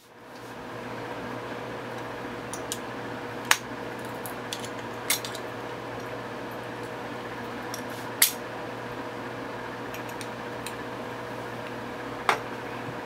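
Sharp metallic clicks and clinks of a screwdriver striking the neck of a glass cologne bottle as it is worked at, a handful of irregular strikes, the loudest about three and a half and eight seconds in, over a steady low hum.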